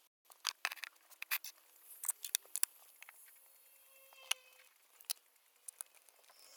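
Irregular sharp clicks and taps from small objects, such as pens and stationery, handled on a study desk. Several come close together in the first few seconds, then they thin out.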